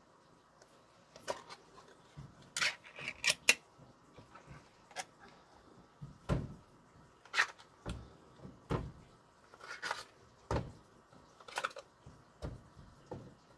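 Irregular knocks, clicks and light rattles of small hard objects being moved about, with a quick cluster of clicks about three seconds in and single knocks every second or so after.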